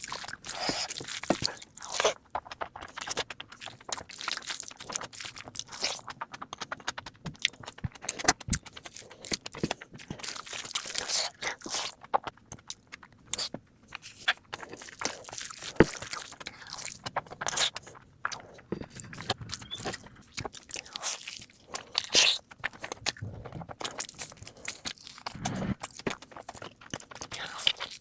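Close-miked chewing and crunching of food, many irregular crisp crackles and wet bites, sped up to double speed.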